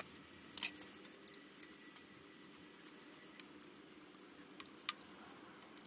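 A few faint, scattered metal clicks and light taps from hand tools being fitted and handled on the engine's fan clutch bolt, at irregular times over a quiet background.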